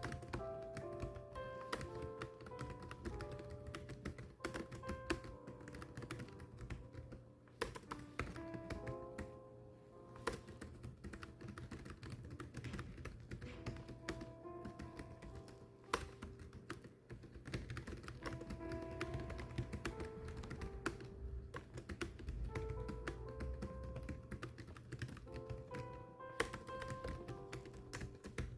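Continuous keyboard typing, a steady stream of clicking keystrokes with brief pauses, over background instrumental music playing a melody.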